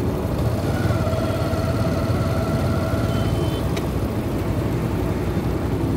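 Motorcycle engine running steadily while riding at low speed, a continuous low rumble with a faint steady whine over the first few seconds.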